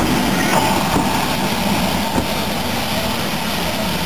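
Train on the Bluebell Railway running, a steady, even noise with no breaks.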